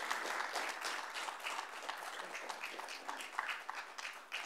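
Audience applauding, the clapping gradually thinning out and dying away near the end.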